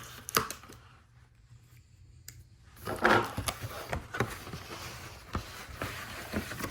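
Handling noises as the Lego instruction book is taken out: a few light clicks, then from about three seconds in, steady rustling and crinkling of packaging with small knocks.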